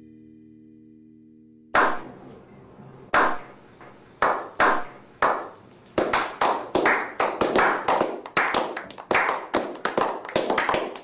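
A small group of people starting a slow clap: single hand claps about a second apart that speed up and thicken into quick applause. A faint steady low tone comes before the first clap.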